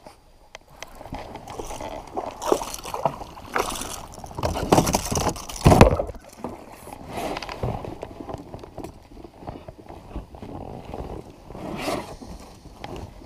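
Irregular scraping and knocking on a kayak with water sloshing and gurgling against it, the loudest knock about six seconds in.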